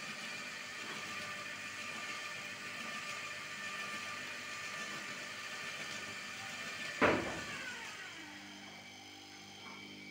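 Electric motor of a 220 V motorized hose reel for a pesticide sprayer, running steadily as it winds the spray hose onto the drum. About seven seconds in there is a sharp clunk and the motor runs down and stops.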